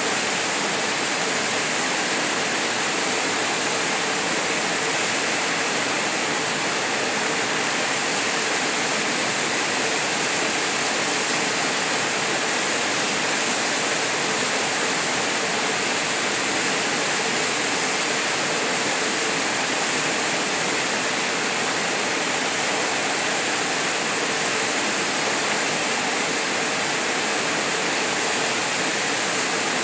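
Steady rush of a small waterfall pouring into a pool.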